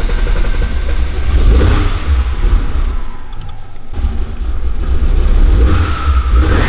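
VW VR6 turbo engine running through a DTM exhaust and being revved: a deep, loud rumble that swells about one and a half seconds in and again around five seconds, with a whine rising and then falling near the end.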